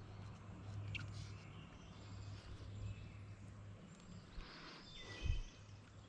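Faint riverside ambience: a low steady hum for the first few seconds, a few short, faint bird chirps, and one dull thump about five seconds in.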